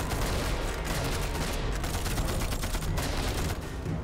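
Battle gunfire: a dense volley of rifle and machine-gun shots in rapid succession.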